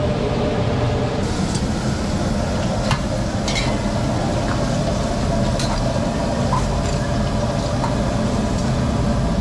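Deep-frying oil sizzling steadily in a large wok, with a few sharp clicks of metal tongs against a steel skimmer and metal trays.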